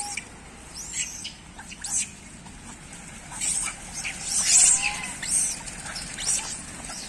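Rhesus macaques squealing and chirping while crowding around for food. The sound is a run of short, high-pitched squeaks that is loudest about four and a half seconds in, with a soft rising-and-falling coo near the same point.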